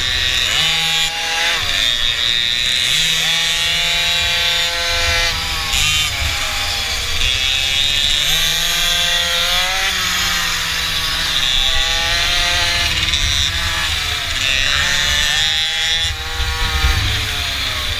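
Small mini bike engine being ridden, its pitch climbing and dropping again every few seconds as the throttle is opened and closed around a track. Wind rumbles on the microphone underneath.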